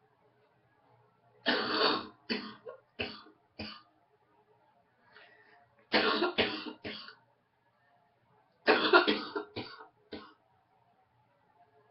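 A woman coughing with a head cold, congested on waking: three fits of three to five coughs each, a few seconds apart.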